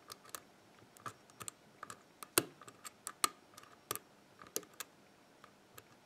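Irregular light metallic clicks of a hook pick lifting and dropping the pin stacks of a six-pin WILKA euro cylinder held under light tension, about two or three a second, with the sharpest click a little over two seconds in.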